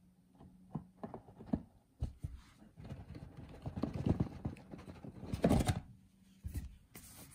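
Hands handling a cardboard product box: a few light taps and knocks, then rubbing and scraping of the cardboard as the lid is lifted off, loudest a little over five seconds in.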